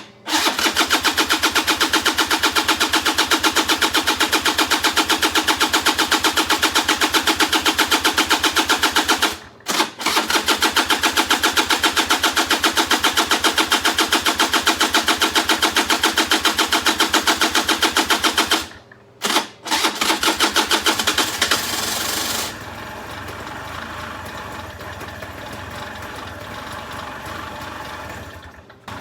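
Suzuki Address 110's two-stroke single-cylinder engine starting and running fast with a rapid, even beat, after its carburettor has been stripped and cleaned to cure a no-start. It cuts out briefly twice and catches again, then settles to a quieter, steady idle near the end.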